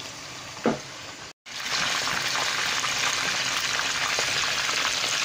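Marinated chicken pieces deep-frying in hot oil in a wok, sizzling. The sizzle is quiet at first, drops out briefly about a second and a half in, then comes back louder and steady with fine crackles.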